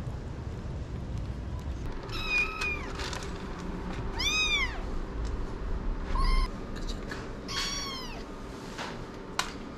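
Young kittens meowing: four high, thin meows a second or two apart, each rising and then falling in pitch.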